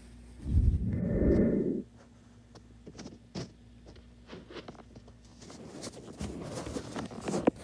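Cloth rubbing and handling noise on a phone's microphone: a loud rough rub about half a second in that lasts over a second, then scattered clicks and another stretch of rustling near the end as the phone is moved.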